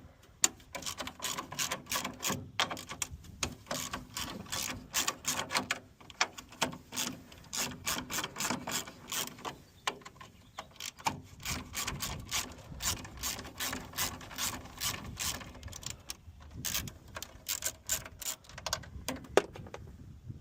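Hand ratchet wrench clicking in quick runs of strokes as a bolt is worked loose, with short pauses about six and sixteen seconds in.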